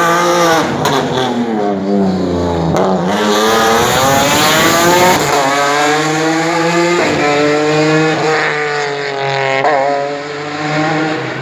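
BMW M3 E36 race car's straight-six engine revving hard, its pitch climbing and dropping again through several gear changes, with a few sharp cracks in the first three seconds.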